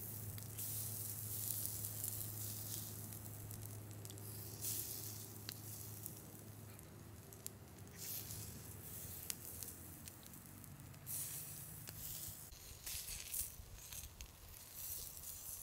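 Food sizzling in hot fat, with scattered small pops and clicks, over a low hum that stops about seven seconds in.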